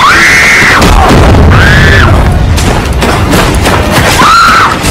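A huge movie explosion: a loud, continuous blast and rumble with crashing, so loud it distorts. High tones that rise and fall arch over it four times.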